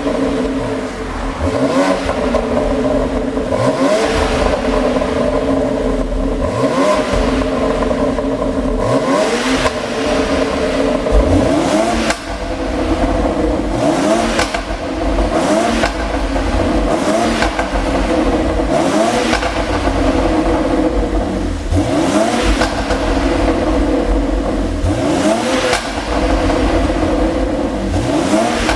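BMW X3 M's twin-turbo straight-six exhaust, revved up again and again, each rise in pitch followed by bursts of pops and crackles as the revs drop: an ECU tune set to make overrun pops.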